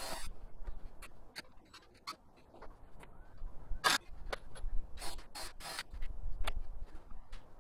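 Irregular light clicks, knocks and short scrapes from hand work on a 2x4-and-plywood workbench.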